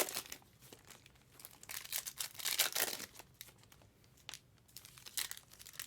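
Crinkling and rustling of trading-card pack wrappers being handled, in irregular bursts that are strongest about two to three seconds in, with a few short clicks later.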